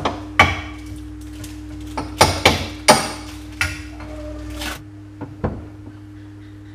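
Steel engine and gearbox parts clinking and knocking as shafts are set into a motorcycle crankcase: about half a dozen sharp metallic knocks, several close together between two and three seconds in, over a steady hum.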